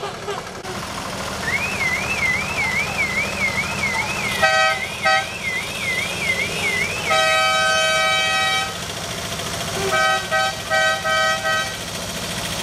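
Vehicle horns sounding over idling engines: a warbling, siren-like high tone that rises and falls about twice a second, then two short honks, one long blast of about a second and a half, and a quick run of short honks near the end.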